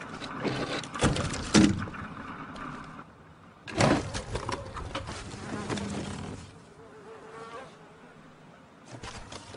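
Wooden planks and debris knocking and scraping as a pile is pulled apart: two sharp knocks in the first two seconds and a louder clatter about four seconds in, with a buzzing under it.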